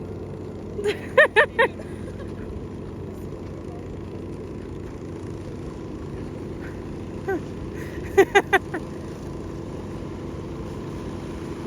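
Motor running steadily. Over it, two quick runs of three or four short, pitched toots come about a second in and again near eight seconds in.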